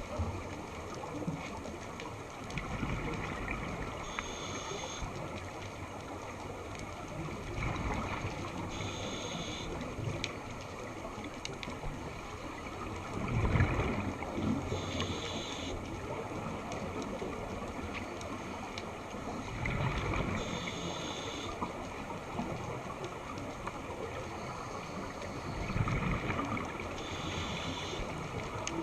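Scuba diver breathing through a regulator underwater: a short hiss from the demand valve on each inhale, then a bubbling gush as the breath is exhaled. The cycle repeats about every six seconds, five times.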